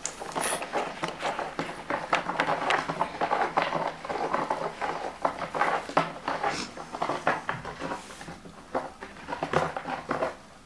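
Red foil tinsel garland rustling and crackling in dense, irregular clicks, stopping abruptly near the end.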